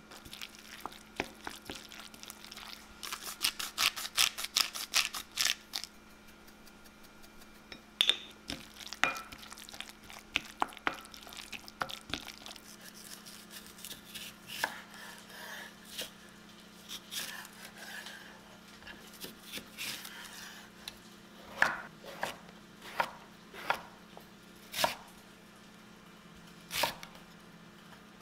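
Kitchen knife cutting vegetables, asparagus among them, on a wooden cutting board: a fast run of chops in the first few seconds, scattered cuts through the middle, then single strokes about once a second near the end.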